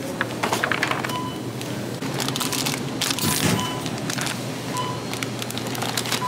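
Plastic food packaging crinkling and rustling in quick bursts as groceries are handled and set into a shopping basket, over a steady low hum. A few short beeps sound now and then.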